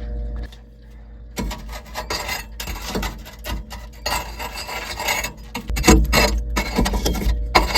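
Irregular scraping and rasping as a hand tool drags ash and debris out from around the bypass door inside an outdoor wood boiler, starting about a second and a half in.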